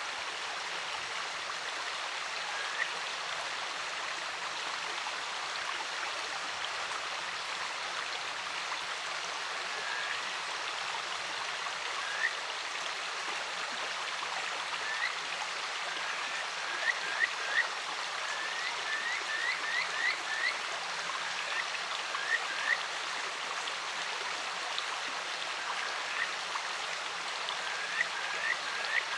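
A clear mountain stream running steadily, with kajika frogs (Buergeria buergeri) calling over it: short rising notes, single and spaced at first, then quick runs of several notes in the second half.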